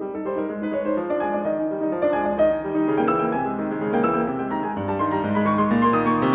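Background music: a piano tune of held notes played one after another.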